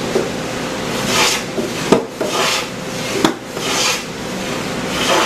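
Hand tool worked in repeated strokes across a wooden board to flatten it: four rasping passes about a second and a half apart, with a couple of short knocks between them.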